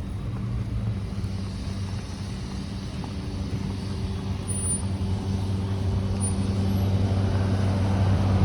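A motor vehicle's engine running with a steady low hum, growing gradually louder as it comes closer.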